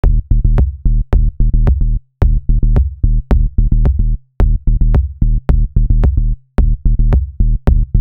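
Background music with a steady electronic drum beat over a low bass note, the beat breaking briefly about every two seconds.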